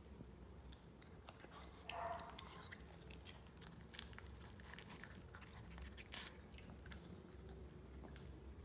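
Pinscher dog eating food chunks from a plate: faint chewing with many small clicks of teeth and plate, and one louder knock about two seconds in.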